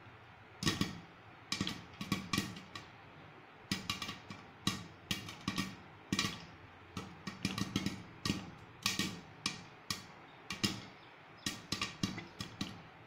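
Popcorn kernels popping in a covered pan, irregular sharp pops a few times a second, the popping corn knocking against the glass lid.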